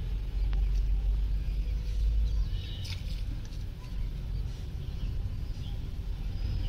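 Outdoor pond-side ambience: a steady low rumble with a few short bird chirps about two and a half to three seconds in.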